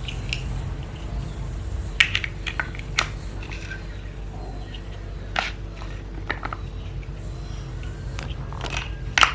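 Plastic toy building blocks clicking and knocking as they are handled, a few separate sharp clicks spread out over a steady low hum.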